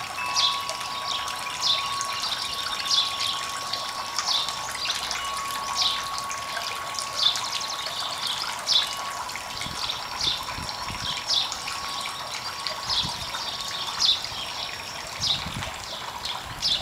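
Small tiered garden fountain trickling steadily, while a bird repeats a short falling chirp about every second and a half.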